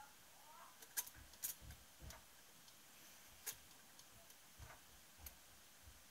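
Light, sharp metallic clicks, about six at irregular intervals, as piston rings are handled and turned on an aluminium piston.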